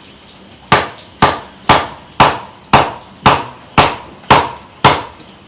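Cleaver chopping a large fish into pieces on a wooden chopping block: a steady run of about nine chops, roughly two a second, starting just under a second in.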